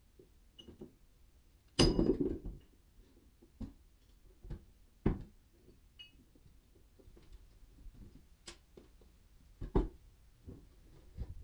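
Hewn half-log timbers being handled and set down on a pile. There is a loud wooden clatter about two seconds in, then a few scattered single knocks and bumps.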